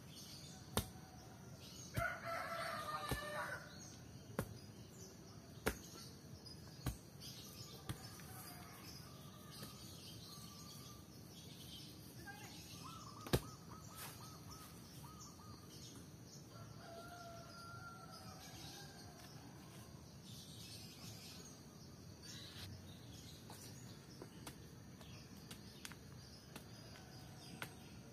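A rooster crows once, about two seconds in. Through it runs a series of sharp knocks of stone being struck with a hand-held stone, about one every second at first and then more sparsely. Small birds chirp now and then.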